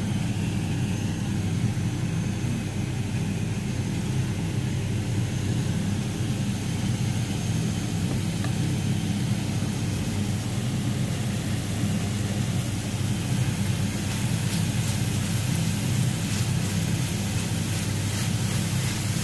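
A steady low hum, with the faint sizzle of chicken tocino frying in a pan on an induction hob and a few crackles near the end.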